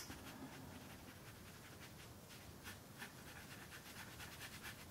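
Faint, soft swishes of a wet paintbrush rubbing over rough-grain watercolour paper, a few short strokes a second, as felt-tip ink is washed out and spread.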